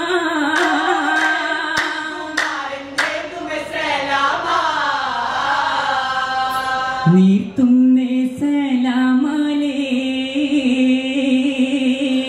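A group of male voices singing a vattappattu (Malabar Muslim wedding song) without instruments, in long drawn-out unison lines, with a few sharp hand claps in the first three seconds. About seven seconds in, a voice slides up to begin a new line and the group takes it up.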